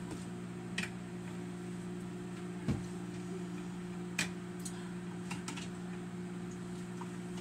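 Microwave oven running with a steady hum, with a few light clicks and taps over it; the hum cuts off suddenly at the very end.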